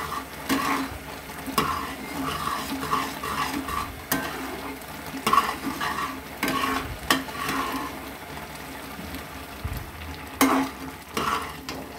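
A flat metal spatula stirring and scraping a thick, grainy milk-and-sugar mixture in a metal pan, in irregular strokes with sharp clicks against the metal. The mixture sizzles on a high flame as the reduced milk cooks down for kalakand and starts to brown.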